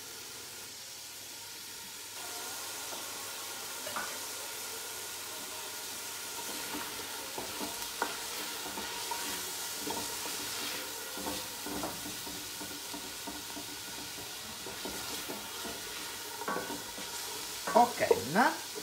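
Celery and carrots sizzling in oil in a soup pot, with a steady frying hiss. The pot is stirred now and then, giving a few light knocks, and there is a louder clatter near the end.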